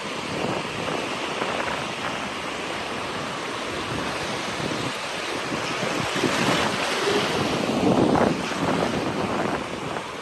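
Ocean surf breaking and washing onto a beach: a steady rush of noise that swells louder as waves break about six to eight seconds in.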